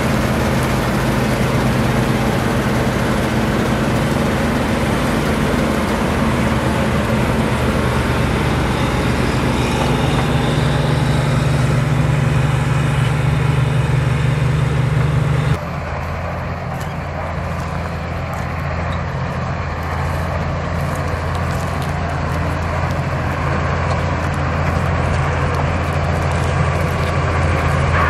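New Holland combine harvester running steadily while harvesting wheat: a steady diesel engine drone with the whir of its belt-driven threshing machinery. About halfway through the sound changes abruptly to a quieter, deeper drone with less hiss.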